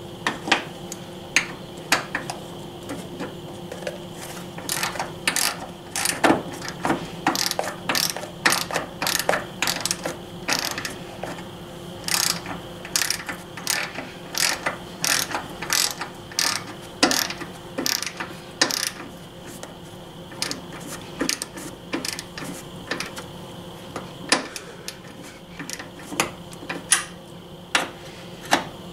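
Hand socket ratchet clicking in quick runs as it drives in the 10 mm bolts holding an under-hood fuse box. The clicks thin out near the end.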